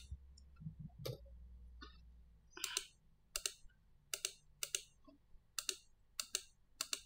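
Computer mouse button clicked repeatedly, about seven sharp clicks at a little under one a second from about two and a half seconds in, each a quick double tick of press and release.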